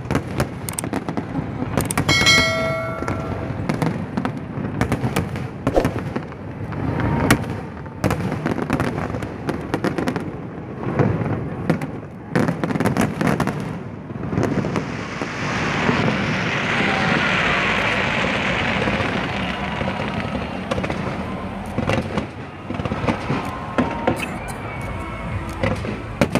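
Fireworks display: aerial shells bursting in a rapid, irregular run of bangs, with a denser stretch of rushing noise a little past the middle.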